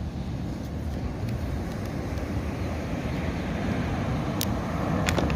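Steady rushing rumble of surf and wind on a beach, with a few sharp clicks about a second in and again near the end.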